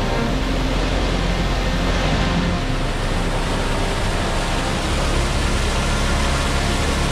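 Waterfall rushing: a loud, steady wash of falling water.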